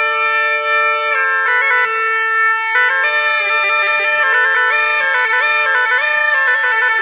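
Sicilian zampogna (bagpipe) played with both drones stopped, only its two melody chanters sounding. It opens on two held notes, then about a second in the two chanters move together in a stepwise tune that grows busier with quick ornamented notes from about three seconds in. This is scordino playing, used to test the zampogna's tuning and to show the player's skill.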